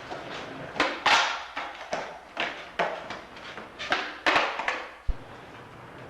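Skateboards knocking and clacking during flip-trick attempts: a string of sharp knocks from boards popping, flipping and landing, about two a second, some louder than others.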